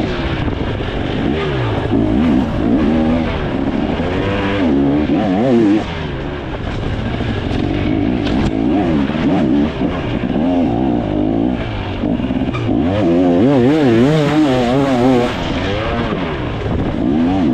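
A 2024 KTM 300 XC's two-stroke engine revving up and down again and again as the dirt bike is ridden, the throttle opened and closed every second or two.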